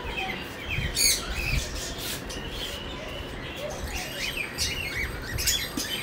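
Cockatiels in the breeding cages chirping: many short overlapping calls and a few rising whistles, with some soft low knocks underneath.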